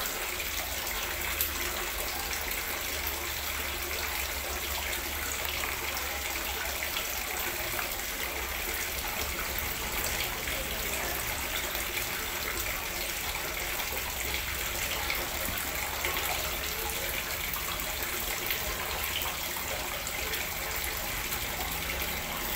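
Liquid melon jelly with grated melon pouring from a plastic measuring jug into a plastic ice-cream-stick mould, a steady splashing of liquid as the cavities fill.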